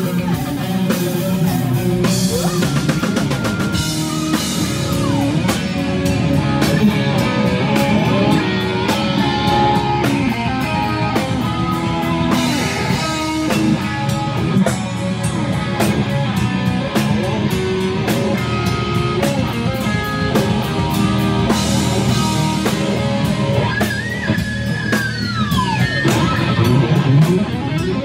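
Rock band playing live: distorted electric guitar, bass guitar and drum kit, with a note sliding down near the end.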